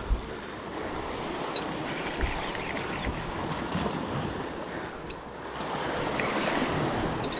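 Sea waves washing against the rocks with wind buffeting the microphone, and a couple of faint sharp clicks.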